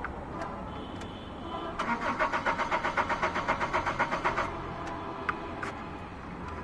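Car engine cranked by its starter motor for about two and a half seconds, in even pulses about seven a second, then stopping without the engine catching: a no-start. A short high steady tone sounds just before the cranking.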